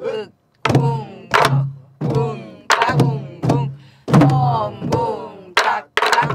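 Sori-buk, the Korean pansori barrel drum, struck with a wooden stick: a string of unevenly spaced strokes, each a sharp knock followed by a low boom that dies away, about one or two a second.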